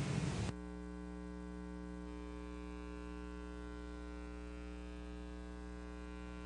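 Steady electrical mains hum, a low buzz with many evenly spaced overtones. The background hiss drops away about half a second in, leaving only the hum.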